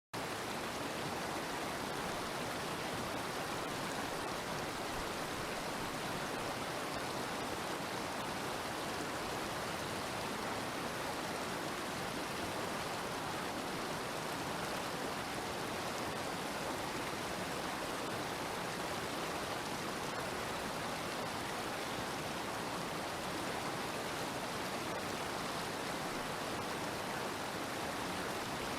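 Waterfall: a steady rush of falling water that does not change.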